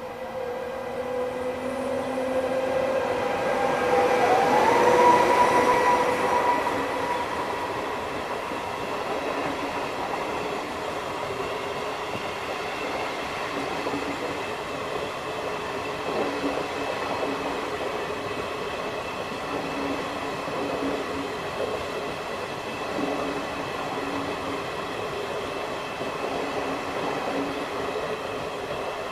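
Electric locomotive of a departing regional passenger train passing close by, its electric whine gliding up in pitch as the loudness peaks about five seconds in. The steady rumble and wheel clatter of the double-deck coaches and the driving trailer follows as they roll past.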